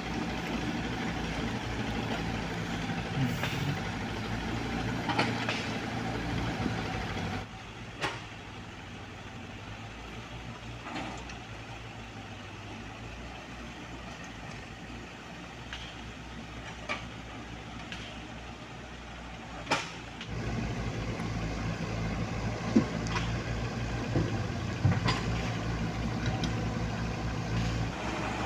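Diesel engines of a Komatsu mini excavator and a dump truck running while the excavator loads soil into the truck bed, with occasional sharp knocks. The engine noise drops to a quieter level about seven seconds in and comes back up about twenty seconds in.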